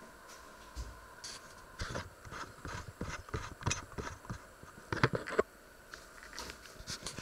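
A run of irregular short clicks and knocks, loudest about five seconds in, over a faint steady hum.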